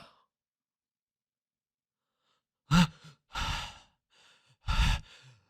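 A person sneezing: about three seconds in, a short sharp catch of breath, then a breathy rush, then a loud, sharp sneeze burst near the end.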